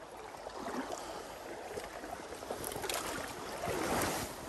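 Footsteps through dry leaf litter and undergrowth, with brush rustling against the walker in uneven swells, over the steady sound of a running creek.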